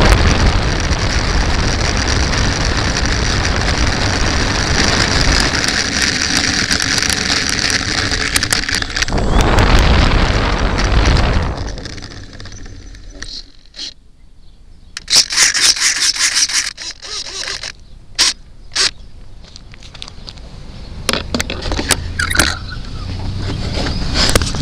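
Radio-controlled model airplane taxiing, heard through its onboard camera's microphone: a loud, steady rush of motor, propeller wash and small wheels on rough pavement that swells about nine seconds in and cuts off suddenly about twelve seconds in as the motor stops. After that come short, sharp squeaks and scrapes over a quiet background.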